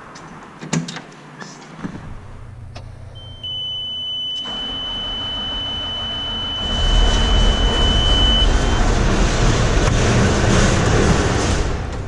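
Case IH 2588 combine being started: a few clicks in the cab, then a steady high warning buzzer for about five seconds, with the engine noise coming in about four seconds in and growing louder and deeper about halfway through.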